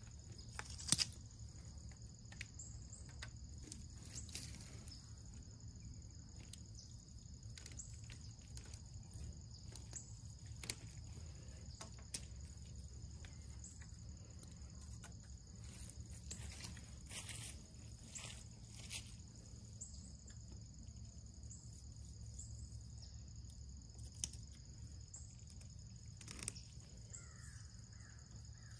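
Steady high-pitched insect chorus of crickets over a low rumble, with scattered light clicks and knocks from PVC pipe being handled and fitted together.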